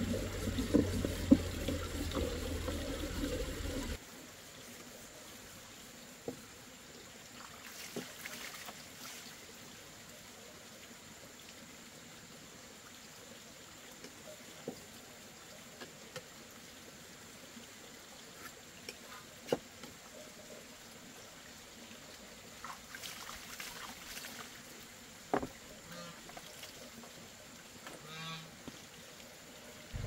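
Domestic geese and ducks calling in a farmyard for the first few seconds. Then quieter, with a few scattered short knocks and clatters.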